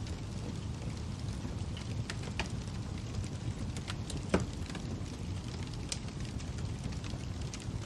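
Wood fire crackling: a steady low rumble with scattered sharp pops and snaps, the loudest about four and a half seconds in.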